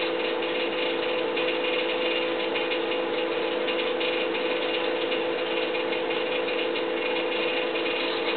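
Steady mechanical whirring hum with a fine, fast ticking over it, never changing in level or pitch: a background noise of unknown source.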